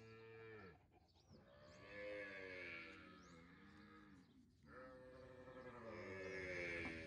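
A calf bawling in long drawn-out calls that rise and fall in pitch: one fades just after the start, then two more begin about a second and four and a half seconds in.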